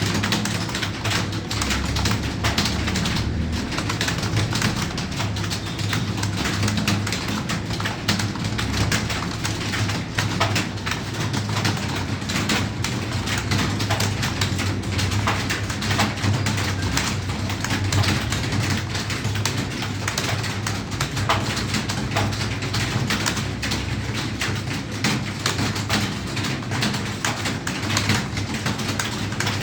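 Rapid, continuous clicking of computer keyboard typing, with many irregular key clicks a second over a low steady hum.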